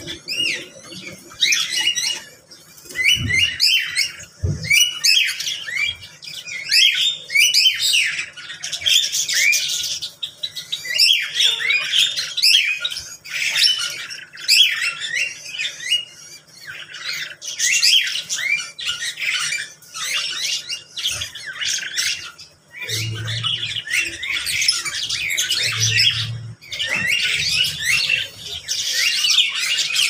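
Many kinds of caged birds in a mixed aviary calling at once: a dense, continuous chorus of squawks, chirps and short whistled calls overlapping without a break.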